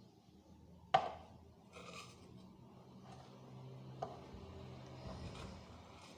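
A sharp knock about a second in, a brief rustle, then soft rubbing and a lighter knock about four seconds in, over a low steady hum: small kitchen containers and a spoon being handled while a powder is scooped out.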